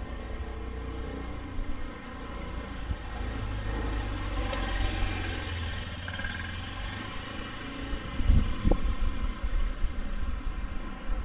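A motor vehicle running and passing by, loudest about four to six seconds in, followed by low rumbling thumps near the end.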